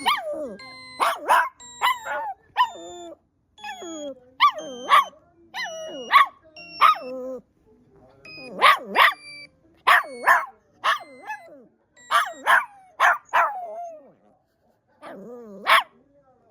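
A dog barking and grumbling in a string of short calls that bend up and down in pitch, about a dozen over the span, the dog 'talking back' at a strange sound. Short steady high tones sound in between the calls.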